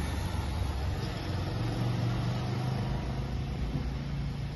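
A low, steady engine rumble that rises slightly in pitch about a second and a half in.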